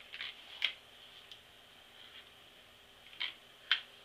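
Flat iron being drawn through sections of hair, making short swishes and ticks: two quick pairs, one at the start and one about three seconds in.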